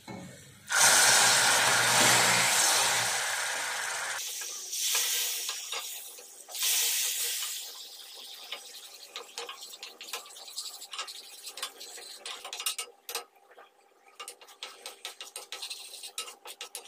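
Water poured into hot caramelised sugar in a stainless steel pan: a loud hiss and sizzle starts about a second in and fades over a few seconds, with a second, shorter burst a few seconds later. Then a wooden spatula stirs the bubbling caramel syrup, scraping and clicking against the pan.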